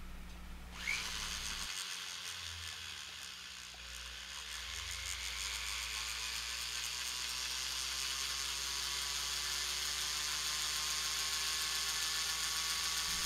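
A small handheld rotary tool running, its bit grinding out the opening in the base of a tiny model hose nozzle. The whir starts about a second in and creeps slightly higher in pitch as it runs.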